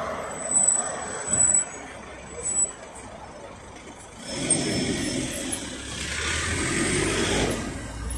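GAZelle Next minibus with a Cummins ISF2.8 four-cylinder turbodiesel pulling away from a stop. A few short sharp sounds come in the first three seconds while the passenger door shuts. From about four seconds in the engine note builds as the bus moves off.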